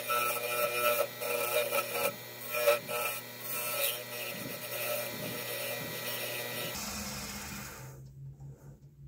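Chisel cutting an amur maackia burl pen blank spinning on a wood lathe: a dry scraping over the steady hum of the lathe. About seven seconds in the cutting stops and the sound fades.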